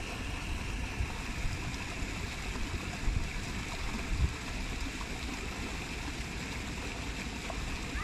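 Steady rushing of running water, like a stream or small cascade, with a few low bumps about three and four seconds in.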